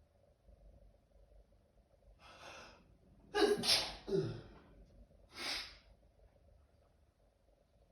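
A person sneezing: a gasping in-breath, then a loud sneeze about three and a half seconds in that trails off in a falling voice, followed by a short breath a couple of seconds later.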